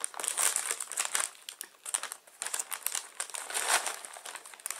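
A plastic crisp packet crinkling as it is handled and reached into, in quick irregular rustles.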